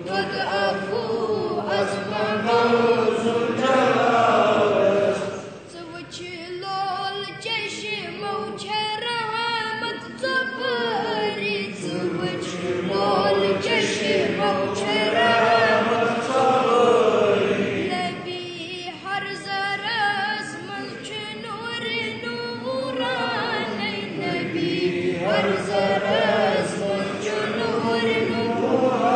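A Kashmiri naat sung without instruments by a child and a group of voices, in long, wavering, chant-like phrases.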